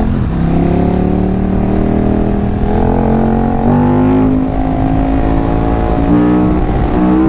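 Big naked sport motorcycle engine running under throttle on a climb, its pitch rising and stepping up and down a few times as the rider works the throttle and gears.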